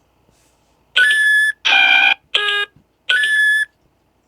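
A sequence of four electronic tones, each steady in pitch and about half a second long. The second and third are pitched lower than the first and last, like a sci-fi computer or console signal.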